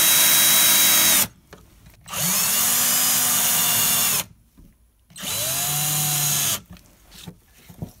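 Cordless drill-driver running in three short spurts, each spinning up to a steady whine and then stopping, driving the light switch's mounting screws back in over spacers. The first run stops about a second in, the second runs from about two to four seconds in, and the third from about five to six and a half seconds in.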